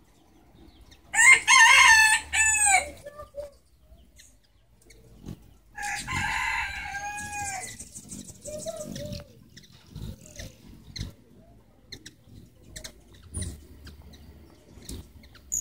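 A rooster crowing twice, about a second in and again around six seconds in, each crow a loud, pitched call lasting a second or two.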